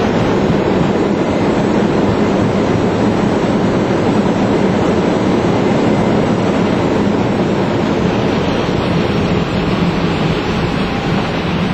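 Airbus A320 landing rollout heard from the cockpit: a loud, steady rumble of the engines in reverse thrust and the landing gear rolling along the runway as the aircraft decelerates, easing slightly near the end.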